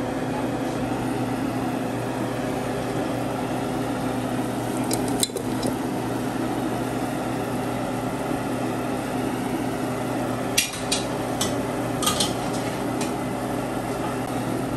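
A steady kitchen hum under a few sharp metallic clicks and knocks, a couple near the middle and a cluster later on, as chicken feet go into an aluminium pressure cooker of simmering sauce and knock against the pot.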